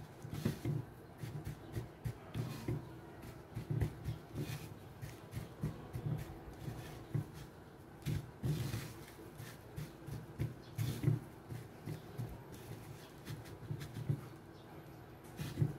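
Hands pressing and patting a slice of Spam into panko breadcrumbs on a wooden plate: irregular soft thumps with crumbly rustling and crackle.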